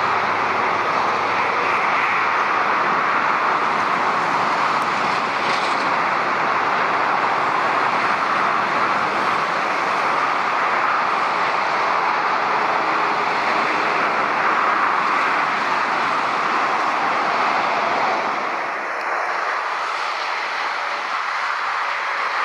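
Steady rushing roar of background traffic and airport noise with no distinct events, easing slightly near the end.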